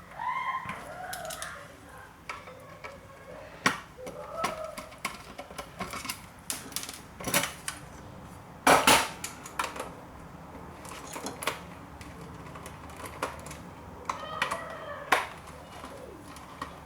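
Screws being taken out of a floppy disk drive's metal casing with a screwdriver: scattered metallic clicks and clatter, with brief squeaks as screws turn, and a sharp knock about nine seconds in.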